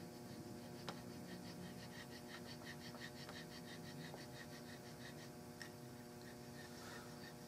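Hand checkering tool scraping back and forth in a groove of a walnut gunstock's pistol grip as checkering lines are cut. It makes a faint, rhythmic rasp of about five strokes a second, with a single light click about a second in.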